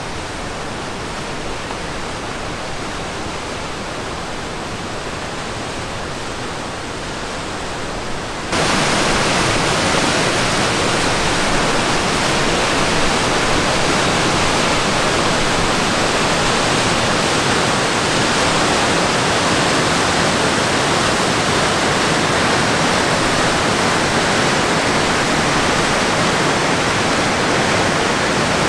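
Whitewater of a mountain creek rushing over boulders, a steady rush of water. About eight seconds in it jumps suddenly to a louder, fuller rush.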